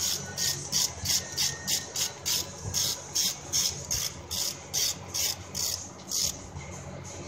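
Hand ratchet wrench being swung back and forth on a fastener, giving a short burst of pawl clicks on each return stroke, about three strokes a second, until it stops about six seconds in.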